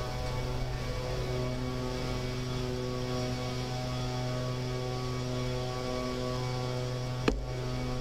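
A steady mechanical or electrical hum made of several steady tones, with a single sharp click about seven seconds in.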